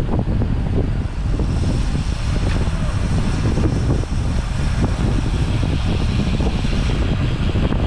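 Steady wind rush and road noise on the microphone of a camera moving along on a bicycle ride, a dense low rumble without breaks.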